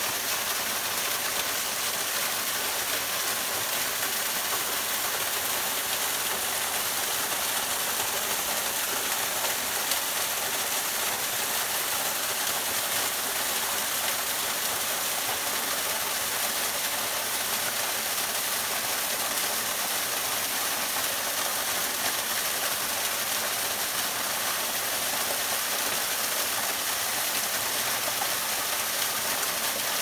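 Small woodland waterfall pouring over rock ledges and splashing into a pool, a steady, unbroken rush of water.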